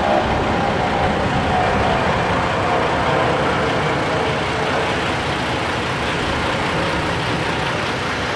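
A heavy engine running steadily, with a faint hum that fades away over the first few seconds.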